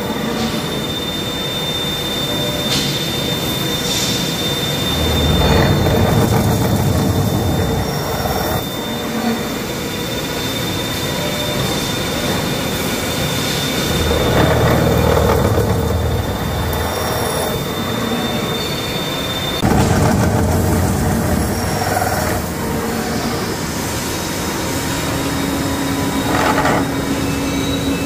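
Mazak Power Center V-15N vertical machining center milling a forged front axle I-beam: continuous metal-cutting machine noise that swells and eases, with a thin high whine that stops about two-thirds of the way through.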